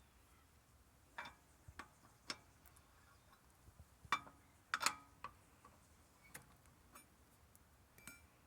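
Scattered light clicks and knocks, irregularly spaced, with two louder knocks about four and five seconds in.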